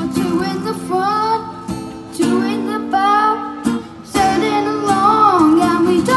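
A boy singing a pop song while strumming an acoustic guitar, both amplified through a PA, the sung line rising and falling over chords struck every second or two.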